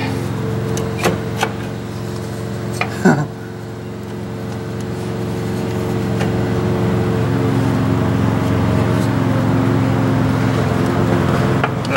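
A vehicle's engine hum, steady and gradually louder through the middle, with a few light metallic clicks from brake parts being handled in the first few seconds.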